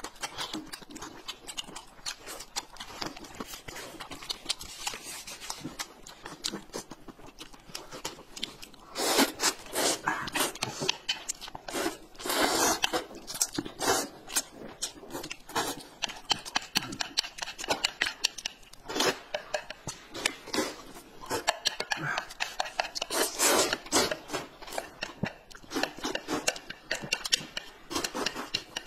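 Close-miked eating sounds: chewing and small mouth clicks at first, then from about nine seconds in, repeated loud slurping of corn noodles in bursts.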